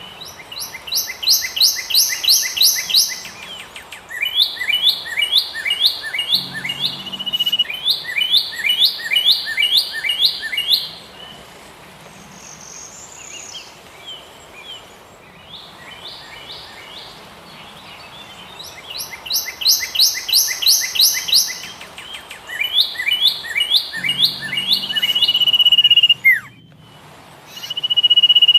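A songbird singing loud phrases of rapid repeated notes, each phrase lasting a few seconds, with a quieter pause in the middle and a long held note near the end.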